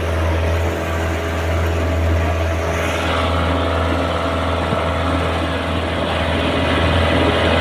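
A truck's engine running steadily as the truck drives through deep floodwater, a constant low hum under the rush of water churned up along its side.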